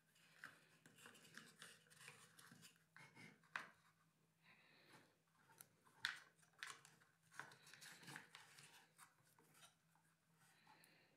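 Faint handling noise: scattered clicks and rustles as wires and connectors are pushed and tucked into a wooden model-aircraft fuselage box, with sharper clicks about three and a half and six seconds in.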